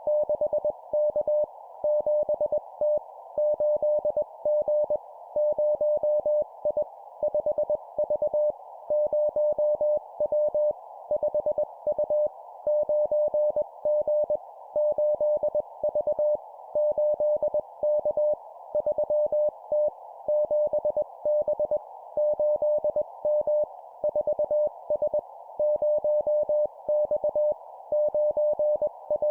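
Morse code (CW) at 20 words per minute: a single steady sidetone keyed in dots and dashes, sent as short two-character groups of letters and numbers with brief gaps between them, over a faint steady hiss.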